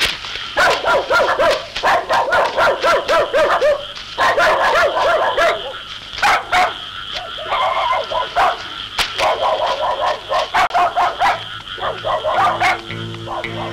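Dogs barking repeatedly in fast volleys of sharp barks and yelps, with short pauses between volleys; music comes in near the end.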